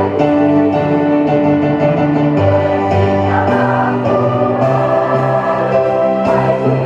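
A school choir singing in harmony, holding long notes that shift to new chords every second or so.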